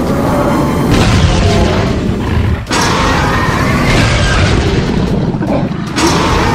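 Cartoon monster-battle sound effects: loud, continuous booming and rumbling, with three fresh blasts about a second in, a little under three seconds in, and near the end.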